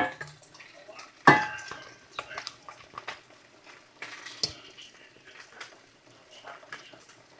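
Eggs being whisked in a stainless steel mixing bowl: a utensil clinking and scraping against the metal, with one loud ringing clank about a second in and a duller knock partway through.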